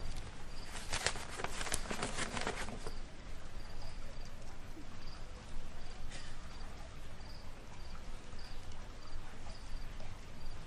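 Crickets chirping steadily in a high, evenly repeating pulse, with a short run of crisp rustles and clicks about one to three seconds in.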